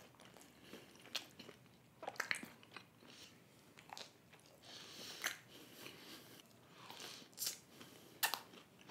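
A person biting into and chewing a slice of cheese-loaded pizza: scattered, irregular short mouth clicks and smacks.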